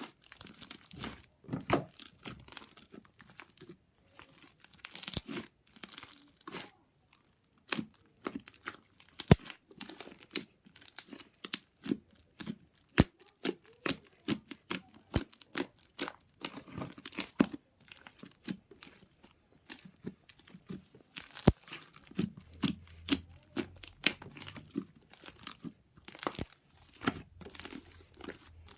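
Slime being squeezed and stretched by hand: irregular crackling with many sharp pops.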